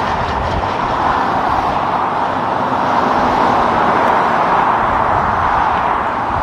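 A Peterbilt front-loader garbage truck driving past at highway speed: steady tyre and engine noise mixed with other passing road traffic, swelling slightly midway.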